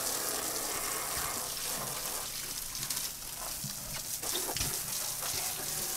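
Boat's coiled washdown hose spraying water in a steady hiss over two swordfish lying on the deck.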